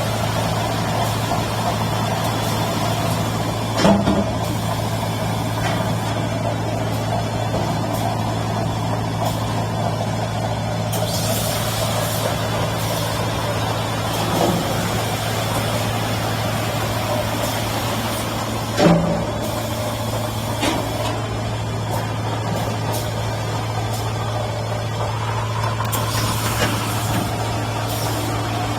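Bottle washing machine for 5-gallon water bottles running with a steady low hum. A few single clunks sound through it, and twice it hisses for a couple of seconds.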